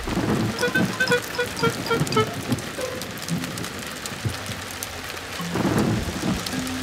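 Cartoon rainstorm sound effect: steady heavy rain, with a quick run of short pitched plinks in the first two seconds and a low rumble of thunder about five and a half seconds in.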